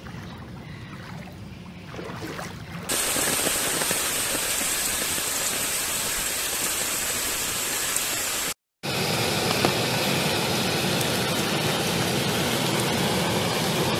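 Fast-flowing floodwater rushing in a loud, steady torrent. It starts abruptly about three seconds in and drops out for a moment just before nine seconds.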